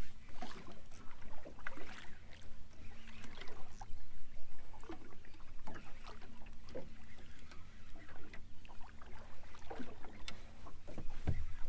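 Ambience on a small fishing boat at sea: a steady low rumble of wind and water against the hull, with a faint steady hum and a few scattered light knocks.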